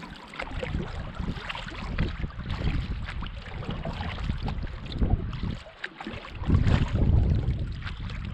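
Wind gusting on the microphone, with a short lull a little past halfway and a stronger gust right after it, over water splashing and lapping around a canoe.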